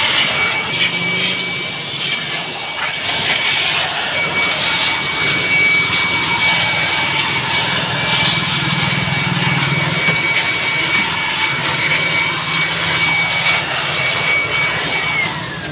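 Corded handheld electric blower running steadily with a high whine, switched off near the end so the whine winds down in pitch.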